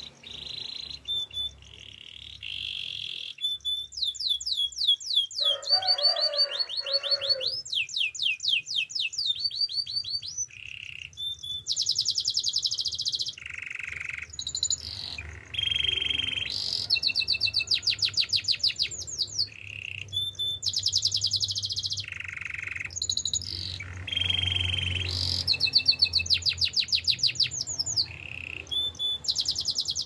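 Male canary singing a long, continuous song: one rapid trill or roll of repeated high notes after another, each phrase at a different pitch and speed, with a lower, rougher stretch about six seconds in.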